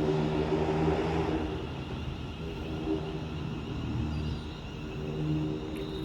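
Passenger train running through the station: a steady hum of several held tones over a rumble of wheels and track, easing slightly after the first second or so.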